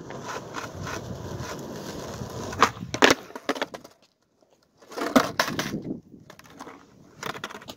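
Skateboard wheels rolling on asphalt, then sharp clacks as the board is popped for a backside heelflip attempt and clatters onto the pavement. A second cluster of board clatter comes about five seconds in, and a few lighter clicks come near the end.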